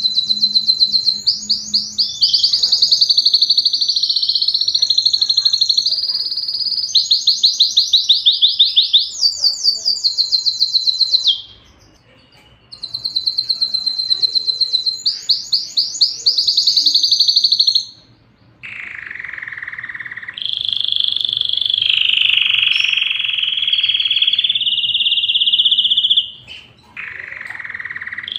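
Domestic canary singing: fast, high trills and rolls of rapidly repeated notes, broken by a short pause. About two-thirds of the way in, the song turns into long, lower, buzzing phrases.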